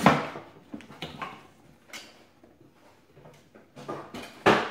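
Empty cardboard box being handled and moved aside: a loud scrape of cardboard at the start, a few light taps, then rustling and a sharp knock near the end.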